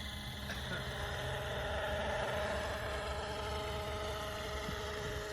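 Radio-controlled scale A-Star (AS350) helicopter in flight, its rotors and drive giving a steady whine whose pitch rises slightly in the first two seconds and then holds.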